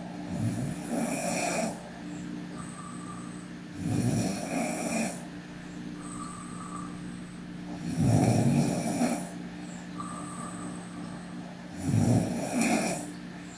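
A sleeping girl snoring: four rough snores about four seconds apart, each lasting a little over a second.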